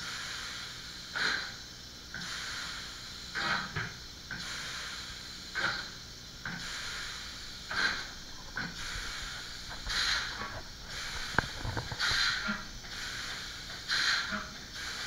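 Short bursts of hissing, about one every two seconds, at a 1923 Crossley twin-cylinder stationary diesel engine as it is readied, with a single sharp click about eleven seconds in.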